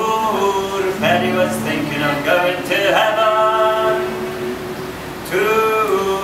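Male and female voices singing a folk song together in long, held phrases, with acoustic guitar strummed underneath; a new sung phrase starts near the end.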